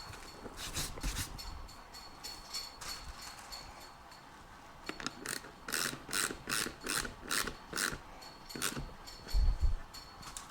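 A series of sharp clicks and snaps from hand work on a motorcycle seat cover, coming about two or three a second in the middle, over a faint steady high whine.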